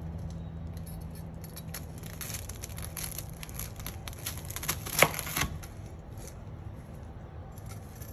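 Crisp, flaky layers of a curry puff crackling as a knife cuts down through the pastry, with a sharp knock of the blade on a plastic cutting board about five seconds in.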